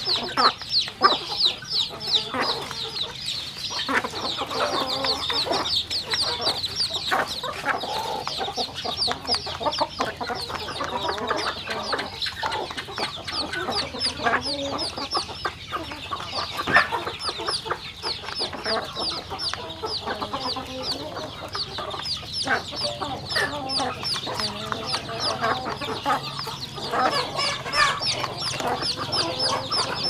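Chicks peeping without pause, many short high falling cheeps a second, over hens clucking, with scattered clicks of beaks pecking grain from a plastic feed trough.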